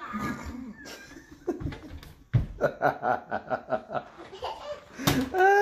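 A person laughing hard, a run of quick rhythmic 'ha-ha-ha' laughs starting about two and a half seconds in. Near the end a short knock is followed by a steady held note.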